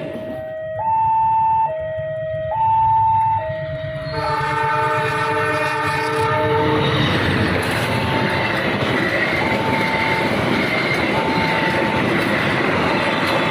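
A railway level-crossing warning alarm sounds, alternating between a lower and a higher tone. About four seconds in, an Indonesian train's locomotive horn sounds a chord for about three seconds. Then the passing train's rumble and wheel clatter take over, with the alarm's higher tone still repeating every second or two.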